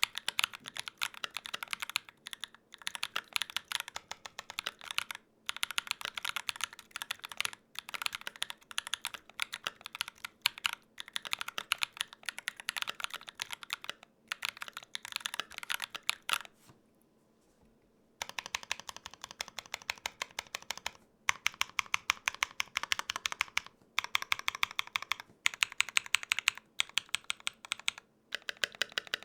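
Fast, continuous typing on a Gok 7V 75% custom mechanical keyboard with lubed tactile switches, its keys clacking in quick succession. About two-thirds of the way through the typing stops for a second or two, then starts again with slightly louder keystrokes.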